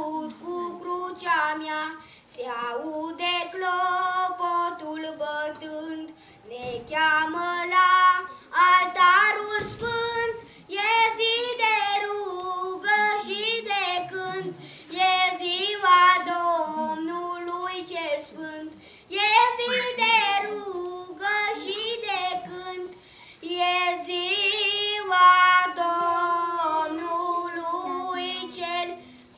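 A boy singing a song solo, in phrases of held notes with short breaks for breath between them.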